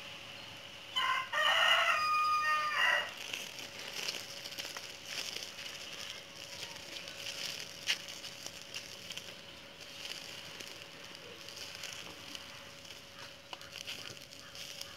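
A rooster crows once, about a second in, a pitched call lasting about two seconds and the loudest sound here. Afterwards the wood fire under the grill gives scattered small crackles and pops.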